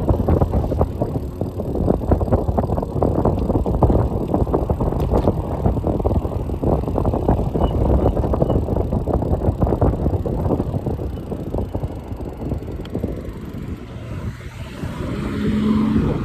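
Wind buffeting the microphone and rattling road noise from a bike being ridden along a road, steady until it eases a little near the end. A short steady tone sounds just before the end.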